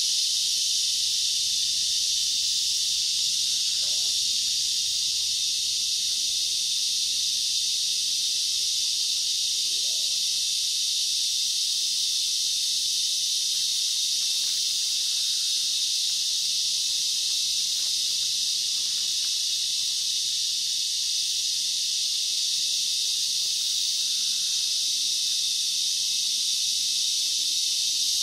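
Steady, high-pitched drone of a tropical rainforest insect chorus.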